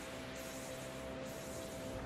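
A steady hissing noise over a held, droning note.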